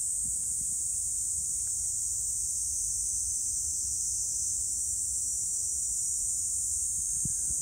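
Steady, high-pitched drone of insects, with a faint low rumble underneath.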